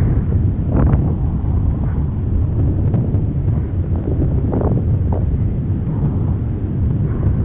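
Steady low outdoor rumble with wind buffeting the microphone, and a few brief louder gusts about a second in and again near five seconds in.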